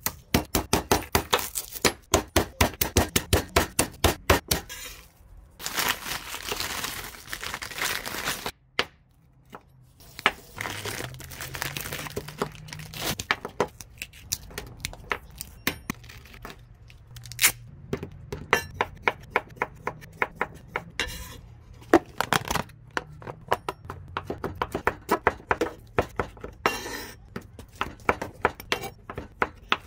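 Knife chopping on a wooden cutting board, a quick even run of about five strokes a second for the first few seconds. Then papery rustling and tearing as skins are peeled by hand, with scattered knife taps. Near the end comes a steadier run of knife strokes through cooked meat onto the board.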